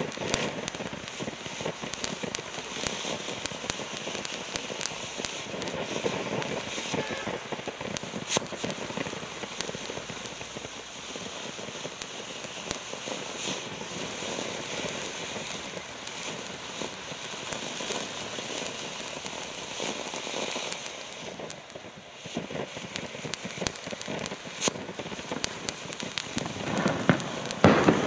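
Kimbolton Fireworks Jumping Jelly Beans ground fountain firing: a dense, steady crackle of sparks peppered with sharp pops, swelling louder near the end.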